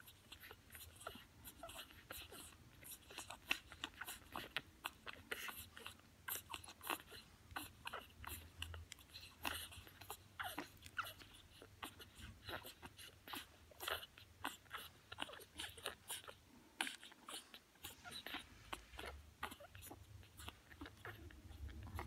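French bulldog puppies suckling at their mother's teats: a quiet, irregular run of wet sucking clicks and smacks, several a second.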